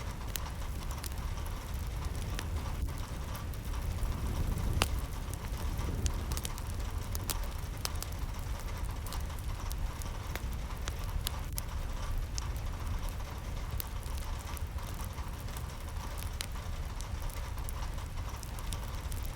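Steady rain falling, a constant low rush with scattered sharp drips and taps of drops hitting a surface.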